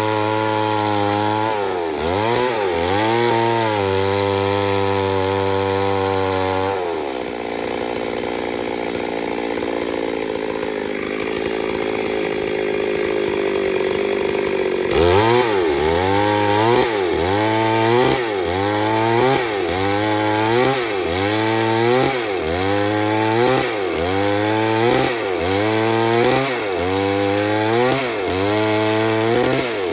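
Stihl chainsaw running and cutting wood. Its engine note holds steady for the first few seconds and changes in the middle stretch. Through the second half the pitch dips and recovers about every second and a half as the saw takes load and frees up in the cut.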